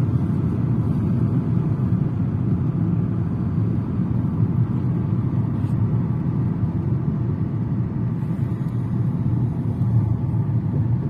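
A car driving along at a steady speed: an even, low road and engine noise that does not change.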